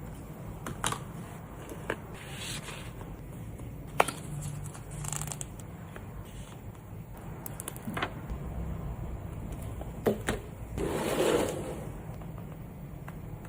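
Hands packing photocards: scattered sharp taps and clicks of card and plastic being handled, with a longer rustle of packing material about eleven seconds in.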